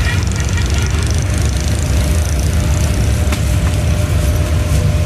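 Sev dough frying in a large pan of hot oil, over a steady low rumble of street traffic, with a sharp metal clink a little over three seconds in.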